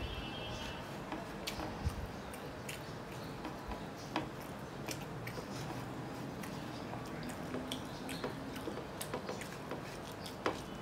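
Eating rice and fried mutton by hand: chewing, and fingers squishing and mixing rice on a plate, with many small scattered clicks of fingers and food against the plate.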